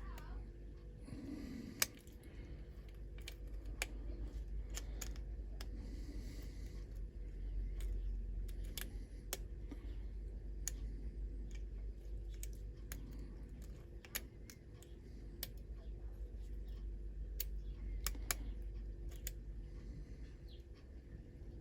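Small, irregular metal clicks and taps of lock picks and a tension tool working the pins of a pin tumbler lock, with brief handling rustles, over a steady low hum.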